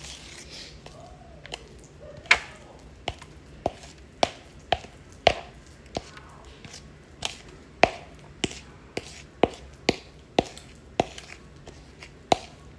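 A spoon or spatula knocking and scraping against a mixing bowl as brownie batter is transferred into a baking pan: about twenty sharp knocks, irregularly spaced, a bit under two a second.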